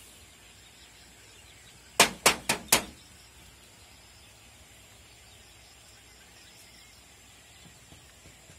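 Four sharp knocks in quick succession, under a second in all, the first the loudest. Behind them a faint steady background with a thin high whine.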